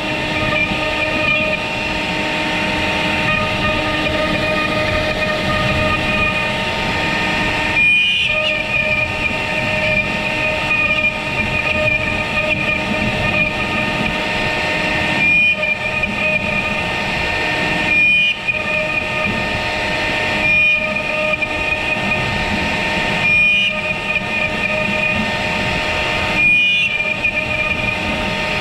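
CNC router spindle whining steadily while its small bit carves a 3D relief into wood. The cutting noise dips briefly every two to three seconds as the bit changes path.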